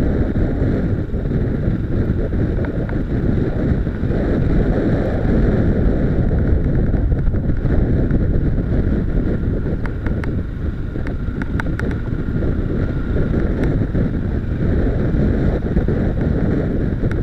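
Wind rushing over the microphone of a camera on a motorcycle riding a gravel track, with the rumble of the ride underneath. A cluster of sharp ticks comes about ten to twelve seconds in.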